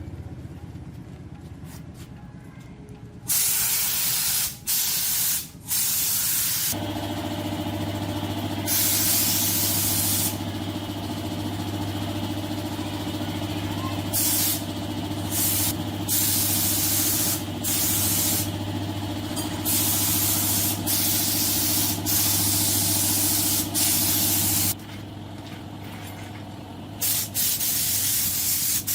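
Compressed air hissing from a spray or blow gun in long bursts with short breaks. A steady machine hum joins it about seven seconds in and stops about twenty-five seconds in.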